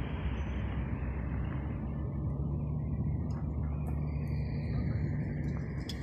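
Steady low rumble of distant vehicle engines, with a faint engine hum holding steady through the middle.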